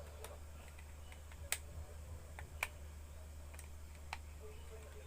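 Sharp little plastic clicks, about six at irregular intervals, as the back cover of a Samsung E1272 phone is pressed and snapped into place on its body. A low steady hum runs underneath.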